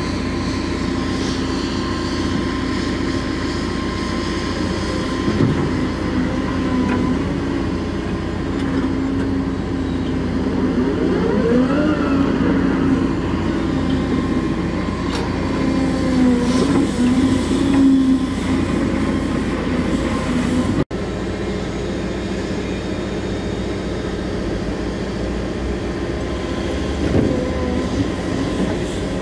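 Caterpillar M322F wheeled excavator's diesel engine running steadily under working load, with a whine that rises and then falls in pitch about midway as the boom and bucket move.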